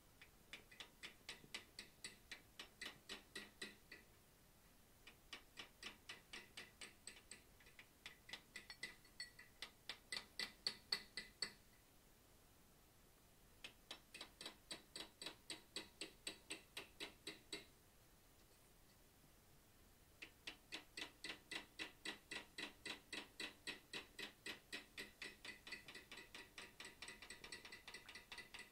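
Light, rapid hammer taps on a hand-held chisel set against hot steel on an anvil, about four a second, each with a short metallic ring, coming in five runs with brief pauses between them, as the nose of a forged bear's head is cut in and set back.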